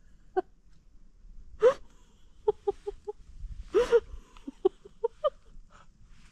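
People laughing in short, breathy bursts, with a quick run of 'ha-ha-ha' syllables about two and a half seconds in.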